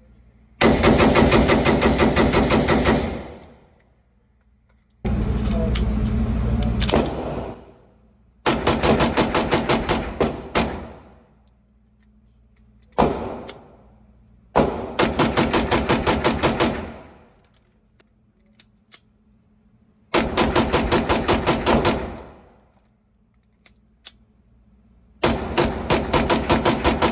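Airsoft gun firing on full auto in about seven bursts of rapid, evenly spaced shots. Most bursts last two to three seconds, with a short one just past the middle, and each fades out with an echoing tail.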